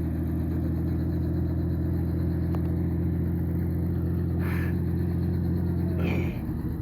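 Helicopter running on the ground before lift-off: a steady low engine-and-rotor drone that dips and changes slightly near the end. Two short hisses come in the second half.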